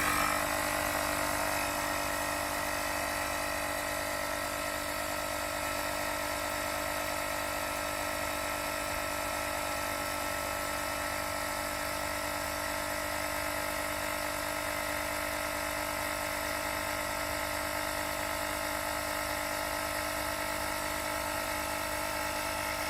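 Black & Decker Air Station portable tire inflator's compressor running steadily at an even pitch, pumping air into a car tire toward the set 30 PSI.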